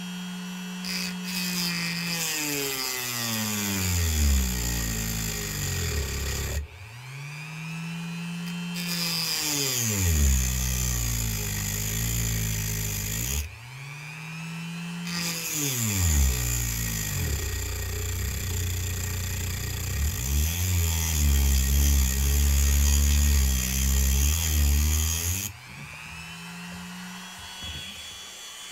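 Rotary tool fitted with a diamond cutoff wheel, grinding the slot of a steel screw head to deepen it. The motor's pitch sweeps up and down as it runs, with a gritty grinding over it. It stops twice and starts again, then runs low and steady before stopping near the end.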